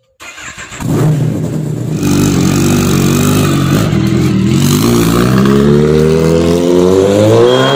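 Kawasaki Z900's inline-four engine running loud through a full-system aftermarket exhaust, low and steady at first, then revving with a rising pitch from about six seconds in.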